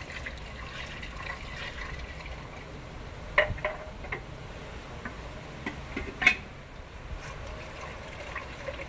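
Water trickling steadily, with a few sharp clicks and knocks, the loudest about three and a half and six seconds in.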